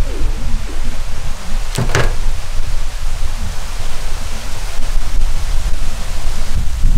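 Wind buffeting the microphone: a steady hiss over a gusty low rumble, with one short, sharp crackle about two seconds in.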